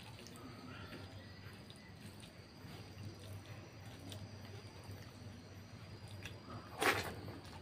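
Fingers squishing and kneading cooked rice with curry on a banana leaf: soft, wet, sticky squelches with small clicks. About seven seconds in comes one brief, louder crackle.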